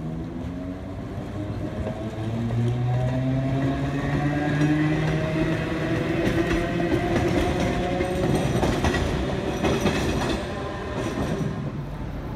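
Green Perley Thomas streetcar running past: its electric traction motors whine in a set of tones that climb in pitch as it gathers speed, then the wheels give a run of sharp clicks and clacks over the track during the second half.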